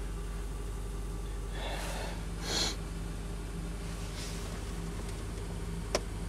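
Honda Civic engine idling quietly shortly after a cold start, a low steady hum heard from inside the cabin. Two short breaths come around two seconds in, and a sharp click comes near the end.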